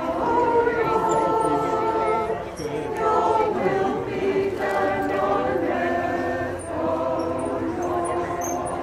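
Church choir singing, in phrases of long held notes.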